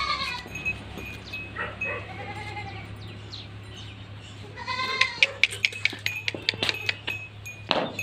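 Beetal goat bleating in short calls, three times: at the start, around two seconds in and around five seconds in. A run of sharp clicks follows in the second half.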